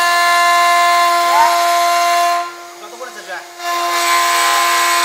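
CNC wood lathe running while it machines a wooden stair baluster: a steady, high-pitched machine whine with the hiss of cutting. About halfway through the cutting noise drops away for about a second and the sound falls quieter, then it picks up again.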